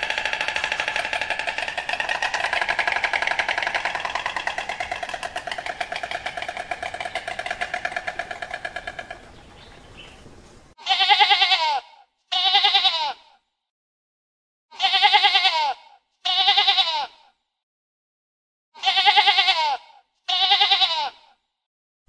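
A continuous buzzing, rapidly pulsing call lasts about nine seconds and fades out. Then sheep bleat six times in pairs, each bleat about a second long with a wavering pitch.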